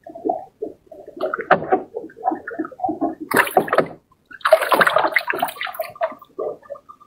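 A hooked fish splashing and thrashing at the water's surface as it is drawn in on a hand line. The splashing is choppy and irregular, with two louder flurries around the middle.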